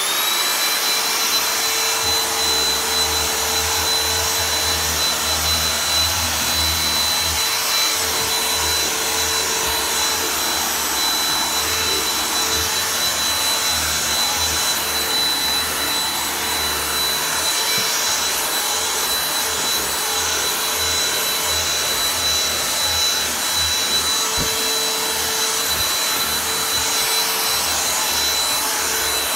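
G-Tech cordless handheld vacuum cleaner switching on with a quickly rising whine, then running at a steady high whine while it is used on the stairs.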